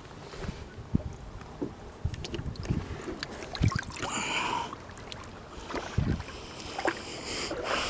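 Water sloshing and splashing in a bass boat's livewell as a largemouth bass is grabbed and lifted out, with scattered knocks and thumps against the boat. The loudest splash comes about four seconds in.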